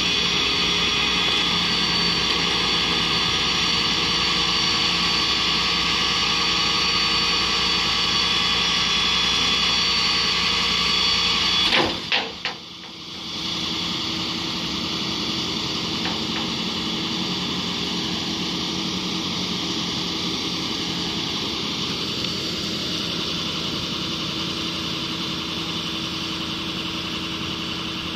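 A vehicle engine running with a steady hum. About twelve seconds in, the sound breaks off with a few clicks and a short dip, then resumes as a slightly quieter steady hum.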